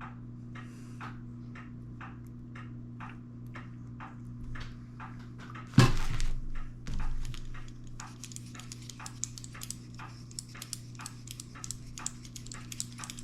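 Handling noises from oiling a rusty hand tool: a sudden loud knock about six seconds in, a smaller one a second later, then a run of small clicks. A regular light ticking, a couple of times a second, and a low steady hum run underneath.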